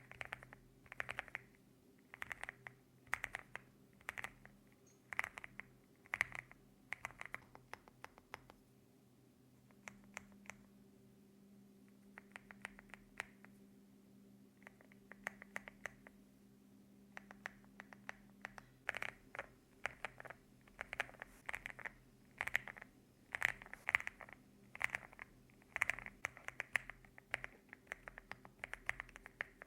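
Typing on a Leobog A75 mechanical keyboard with stock Rambo linear switches and MDA-profile keycaps: quick runs of keystroke clacks. The clacks grow softer and sparser for a stretch in the middle, then pick up again, denser and louder.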